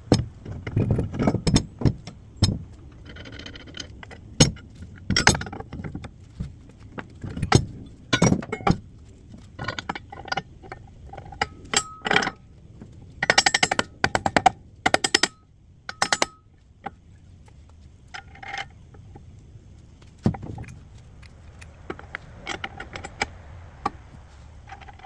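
Steel parts of a hydraulic excavator thumb (cylinder, bracket, bolts) clinking and knocking as they are handled and fitted by hand: irregular sharp taps and clanks, with a quick run of clicks about halfway through.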